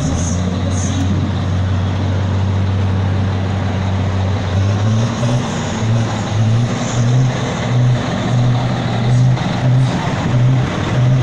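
A vehicle engine running close by: a steady low drone at first, then about halfway through it changes to a rhythmic low pulsing.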